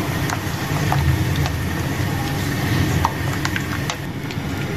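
A spoon stirring green chicken karahi in a pan, giving scattered clicks and scrapes against the pan, over the steady sizzle of the bubbling curry and a low rumble.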